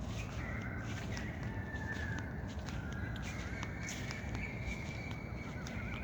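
Birds chirping and calling: long, high, wavering notes overlap each other, with short sharp chirps scattered throughout.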